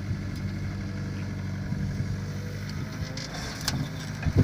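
Heavy diesel engine running steadily at an even low pitch, with a few light clicks about three seconds in.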